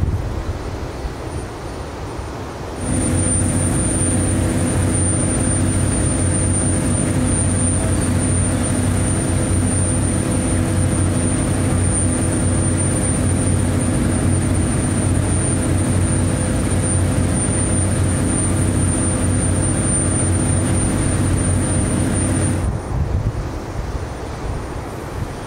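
Construction machinery engine running steadily with a constant low hum and a few steady higher tones. It comes in abruptly about three seconds in and stops abruptly about three seconds before the end, with quieter outdoor noise either side.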